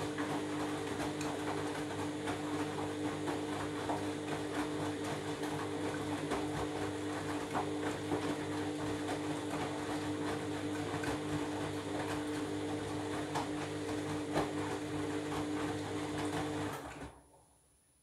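Candy front-loading washing machine running its drum at a steady speed with the laundry held out against the drum wall: a steady motor whine with a dense patter of small clicks and swishing. It stops fairly sharply about 17 seconds in, as the drum halts and the wet bathrobes drop to the bottom.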